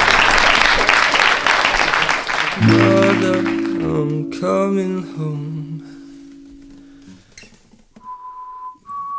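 Background music led by acoustic guitar. It opens under a burst of clapping and cheering, then guitar notes ring over held chords and fade away. Near the end come a few long high single notes, each a step higher than the last.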